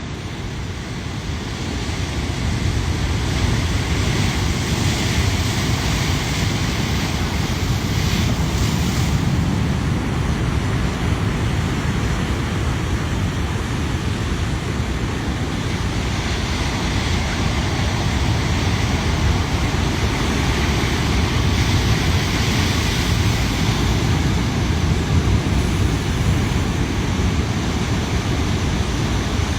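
Rough, storm-swollen sea: surf breaking and washing in a continuous roar of water that surges and eases every few seconds, with a low wind rumble on the microphone.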